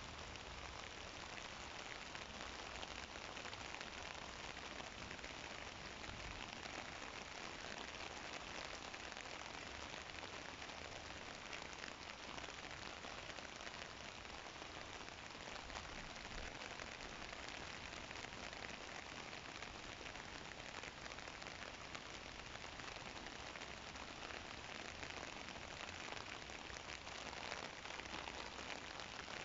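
Steady rain falling on open water and wet paving: a dense, even patter of drops.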